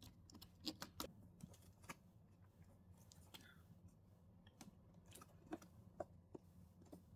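Near silence, broken by faint, scattered clicks and taps from hands handling the parts of an old television being taken apart.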